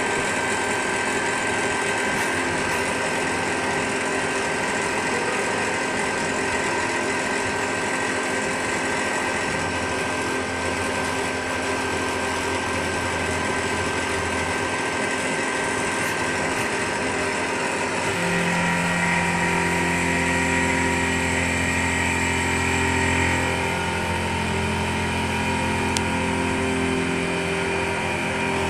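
CNC turn-mill machine milling a chucked workpiece with a driven end mill on its live-tooling spindle: a steady machine whine with several held tones over cutting noise. About two-thirds of the way through, a lower hum joins in and holds for several seconds.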